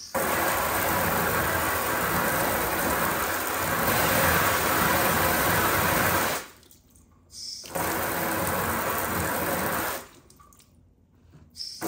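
Water jetted from a handheld spray nozzle, spattering against a car's rear wheel arch and sill panel. It sprays for about six seconds, stops, sprays again for a couple of seconds, stops, and starts again near the end.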